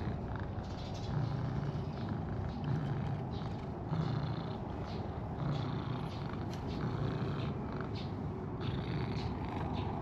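Cream-coloured cat purring steadily as its chin is scratched, the purr swelling and easing with each breath, about every one and a half seconds.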